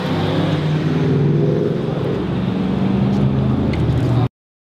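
A motor vehicle engine running with a steady low hum, with voices mixed in; the sound cuts out abruptly near the end.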